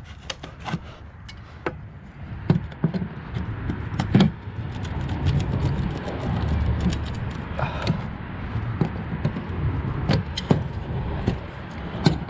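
Screwdriver and pliers clicking and scraping against the plastic fuel-line clips on a fuel pump module as they are prised out of their grooves, with many short sharp clicks throughout. A low rumble runs under it from about two seconds in.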